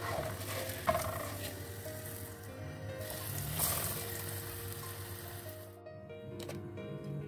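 A breaded sandwich sizzles as it shallow-fries in oil in a pan, with a sharp knock about a second in. The sizzle stops about six seconds in, and soft background music plays throughout.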